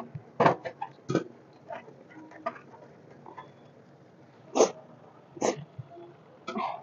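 Sticks of firewood knocking and clattering against the brick stove and each other as they are shoved into the fire of a wood-fired chulha: a handful of short, sharp knocks spread apart, with a metal spoon scraping in the iron kadhai near the end.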